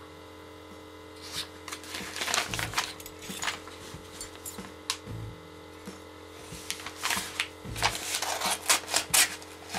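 Padded bubble mailer envelope rustling and crinkling as it is handled and turned over on a table, in two bouts, with a few soft thumps as it is set down. A steady faint hum runs underneath.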